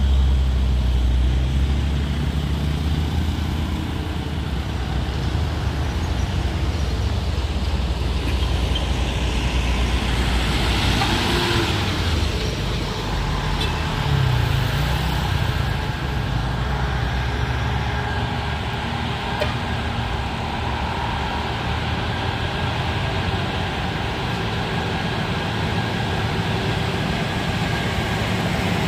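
Heavy truck engines running on the road amid steady traffic noise, the low engine rumble strongest in the first few seconds, with a spell of hiss around ten to twelve seconds in.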